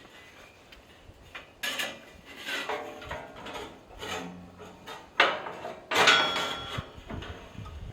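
Irregular scraping and knocking of hard objects, with short metallic rings about five and six seconds in.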